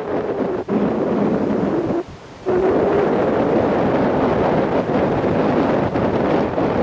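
Wind rushing and buffeting over the microphone of a camera carried in flight on a paraglider, a loud steady rush that drops away briefly about two seconds in.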